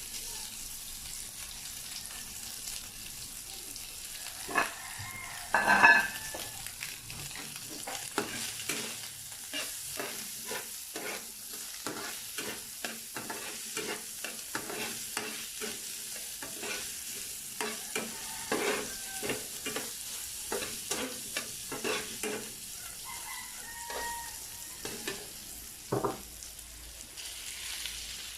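Garlic fried rice sizzling in a hot pan while a spatula stirs and scrapes it in quick, repeated strokes against the pan, with a loud clack about six seconds in.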